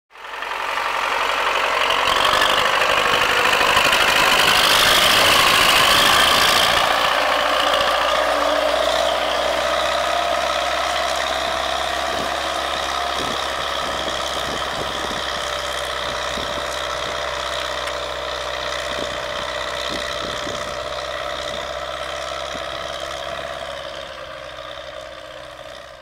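MTZ (Belarus) tractor's four-cylinder diesel engine running steadily as it tows a loaded-type farm trailer over stubble, louder for the first several seconds, with scattered knocks in the middle stretch.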